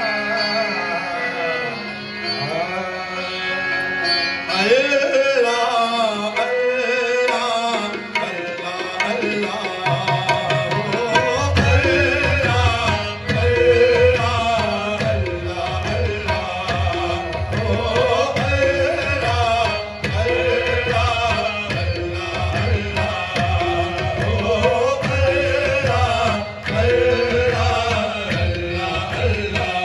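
Devotional song with melodic singing and instrumental accompaniment. A tabla-like hand-drum beat comes in about eleven seconds in and keeps a steady rhythm under the melody.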